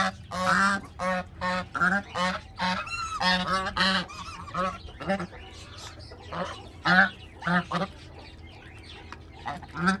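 Domestic geese honking over and over as they eat from a bowl of bread pieces. The calls come thick and fast for the first few seconds, then thin out to scattered single honks.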